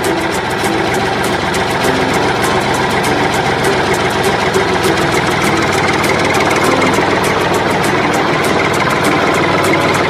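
L&T Case backhoe loader's diesel engine running steadily under load as the hydraulic arm digs and lifts wet soil, with a rapid, even ticking over the engine note.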